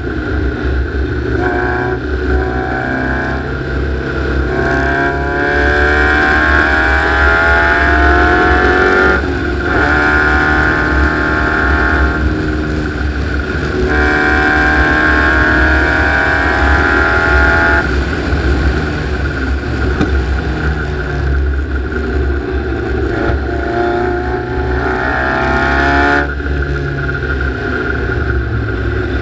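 Open-cockpit buggy's engine heard from onboard while driven hard round a track, its pitch rising as it revs and dropping at each gear change several times, easing off in the middle and pulling again near the end. A loud low wind rumble runs under it.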